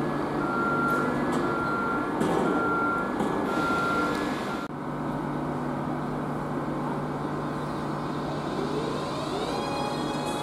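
Electric Cercanías commuter train with its warning beeps sounding in a row of evenly spaced high beeps, about one a second, over the hum of the train. Later the train's traction motors whine, rising in pitch near the end as it pulls away.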